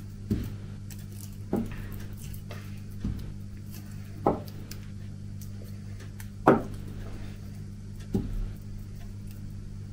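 About six light knocks at irregular intervals, the loudest about two-thirds of the way through, as gathered Easter eggs are set down and sorted on a table. A steady low hum runs underneath.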